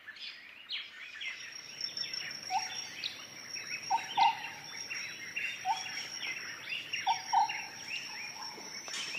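Many small birds chirping and twittering over a steady high whine. Short lower call notes, some in pairs, come every second or so.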